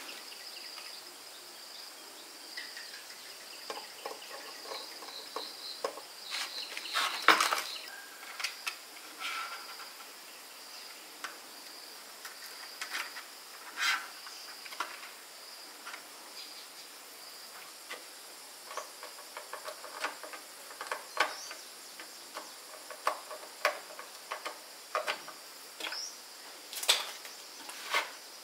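A steady high insect drone with scattered light clicks, taps and small clatters, a louder knock about seven seconds in and a run of taps in the second half.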